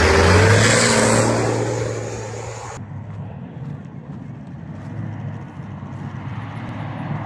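Rally vehicle engine driving past at speed, loudest in the first second with its pitch falling as it goes away. About three seconds in it cuts abruptly to a quieter, more muffled engine running steadily.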